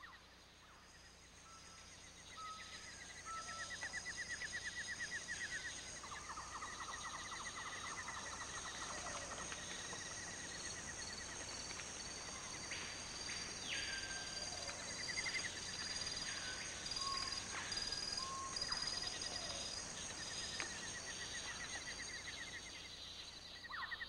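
Tropical forest ambience with birds calling: rapid trills, short whistled notes and downward-sliding calls over a steady high-pitched drone.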